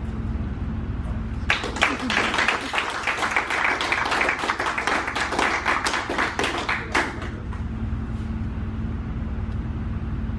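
A small group clapping for about five seconds, starting a second and a half in and stopping abruptly near seven seconds, over a steady low hum.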